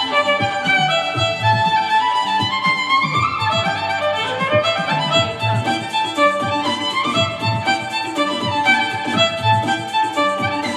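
Violin playing a quick melody of running notes over a backing track with a steady beat.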